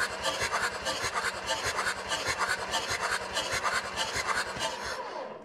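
Audi 2.5 TDI V6 diesel turned over by its starter motor with all glow plugs removed, a fast, even rhythm that fades out about five seconds in. This is a cold compression test on the fourth cylinder, which builds under 5 bar: weak compression.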